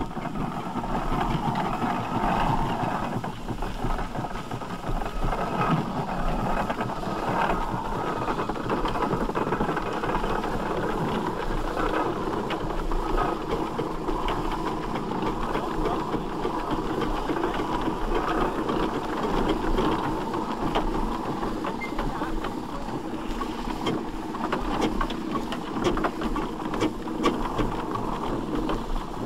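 1910 Davey Paxman agricultural steam traction engine starting away slowly, halting, then standing with its engine idling, its exhaust beats and mechanical knocks running on without a break.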